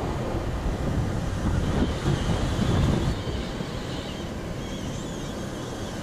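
Wind rumbling on the microphone over surf washing onto the beach. The wind eases after about three seconds, and faint high bird calls come and go through the second half.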